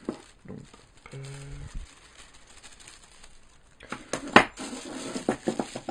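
Metal parts and screws of a Neewer microphone stand clinking and knocking as they are handled. A quick run of sharp clinks comes in the second half, the loudest at about four seconds in.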